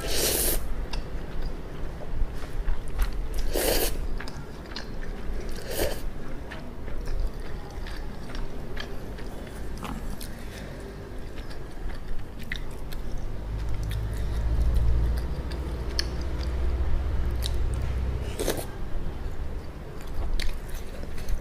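Close-miked eating of instant ramyun noodles: loud slurps right at the start, at about 4 and 6 seconds and near the end, with wet chewing and small mouth clicks in between.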